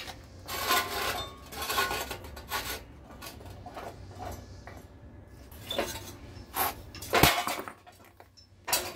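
A brick paver scraping and clinking against the steel bed and blade of a manual lever paver splitter as it is set in place, with a few lighter knocks. About seven seconds in comes one sharp crack with a low thud, the loudest sound: the splitter blade snapping the paver in two.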